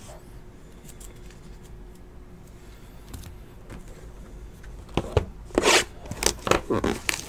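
A foil trading-card pack wrapper crinkling in short, sharp crackles as it is handled and torn open, starting about five seconds in after a near-quiet stretch of room hum.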